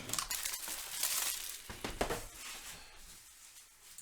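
Crinkling and rustling of card-box packaging being handled, irregular and busiest in the first couple of seconds, then dying down.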